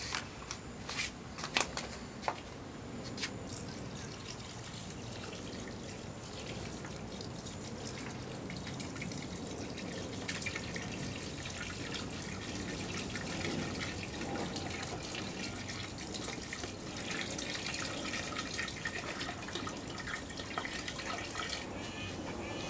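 Water poured from plastic bottles onto sand in two clear chambers, a steady splashing trickle. A few sharp knocks near the start as the bottles are picked up.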